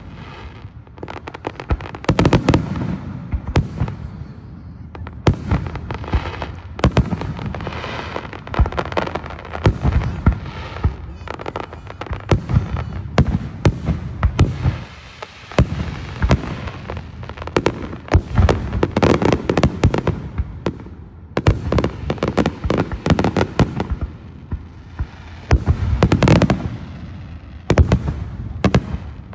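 Aerial fireworks shells bursting in a rapid, continuous barrage of bangs, several every second, easing briefly about halfway through before picking up again.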